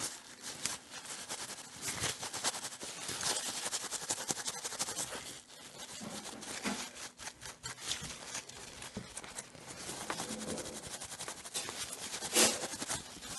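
Paper tissue rubbing and scrubbing over a PS4 circuit board to wipe off excess flux with alcohol: a continuous dry, scratchy rustling with a louder scrape near the end.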